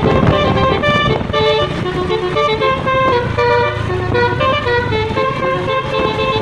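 Basuri "telolet" multi-tone vehicle horn playing a tune of short notes, the pitch changing several times a second.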